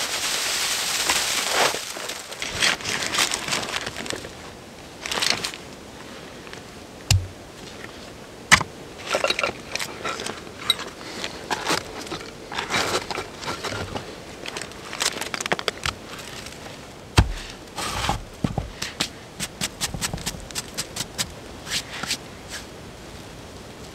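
Rustling and crunching of snow-laden spruce boughs being pushed onto a shelter, then scattered clicks, taps and rustles of gear being handled.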